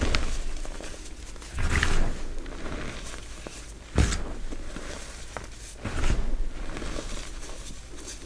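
Hands squeezing and crushing soft, powdery gym chalk. There are four dry, crunching squeezes about two seconds apart, the one about four seconds in starting sharply, with faint crumbly crackles between them.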